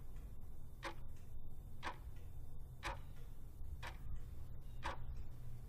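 Clock ticking steadily, about once a second, over a low steady hum.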